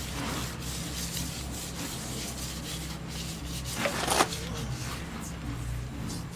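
Paintbrush brushing flat black paint onto a truck's body panel: a soft rubbing of bristles on metal, with one louder scrape about four seconds in. A steady low hum runs underneath.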